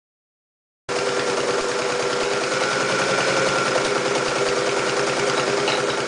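Mitsubishi MAZ4 electric sewing machine running at speed: a fast, steady stitching rattle with a motor hum that starts suddenly about a second in.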